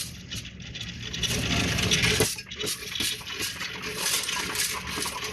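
Loose coins clinking and clattering as they are fed into a Coinstar coin-counting kiosk, with a dense run of rapid, irregular clicks.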